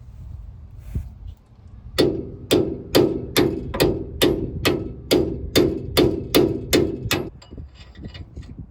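Hammer blows on the bent steel bracket that a Peterbilt 379's steer-shock bolt passes through, knocking it back straight. About thirteen sharp ringing strikes in a steady rhythm of a little over two a second, starting about two seconds in.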